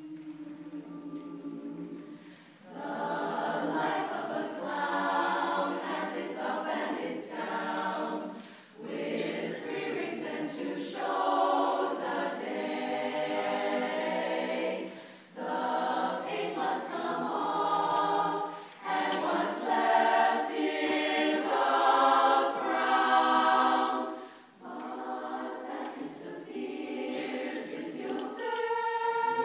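Women's chorus singing a cappella in harmony, in phrases broken by short pauses for breath; the singing begins about two and a half seconds in.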